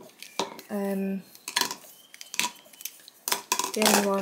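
Plastic pens being dropped into hard plastic beakers, a string of light clicks and knocks as they hit the cups. A short steady pitched sound comes about a second in and again near the end.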